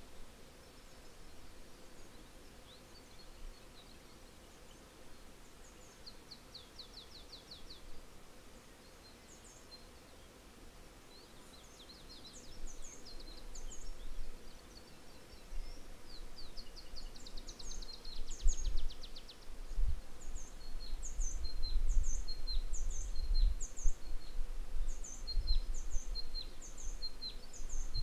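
Small songbirds chirping, with a couple of rapid trills. In the second half a short high chirp repeats about twice a second. A low, uneven rumble of wind on the microphone builds from about halfway and becomes the loudest sound.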